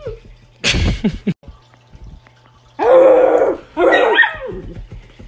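A short, loud knock or rub about a second in, then two drawn-out voiced calls, the second falling in pitch at its end.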